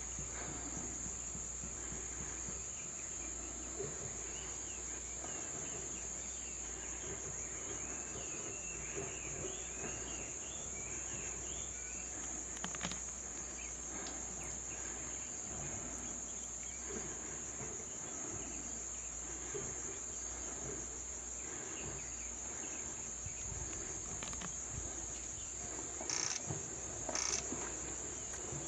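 Steady, high-pitched drone of insects, with faint chirps in the middle and two short, louder sounds about a second apart near the end.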